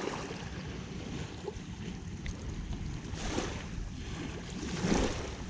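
Wind on the microphone with small waves lapping at the shoreline, rising in two louder washes about three and five seconds in.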